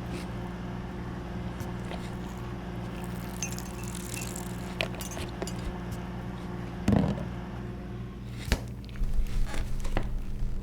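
A steady low hum with small scattered clicks and clinks over it, a dull knock about seven seconds in, a sharp click a little later, and a stretch of light rattling near the end.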